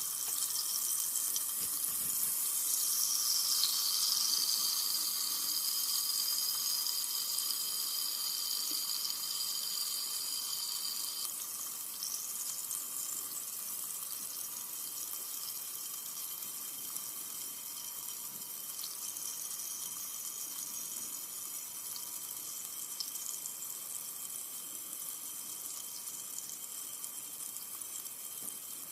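Carbonated soda fizzing, a steady high hiss of bursting bubbles that slowly fades.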